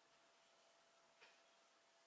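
Near silence: faint room tone with a thin steady hum and one soft, brief rustle a little after a second in.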